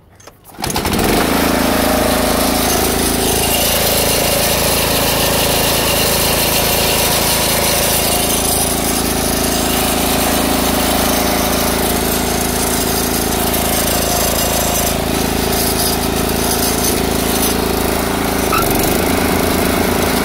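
Briggs & Stratton engine of a Craftsman 33-inch walk-behind lawn mower starting about a second in and then running steadily.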